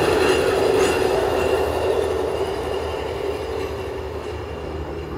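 Hi-rail pickup truck rolling along the rails on its steel guide wheels, with a steady rolling and ringing from wheel on rail mixed with its engine. The sound fades steadily as it moves away down the track.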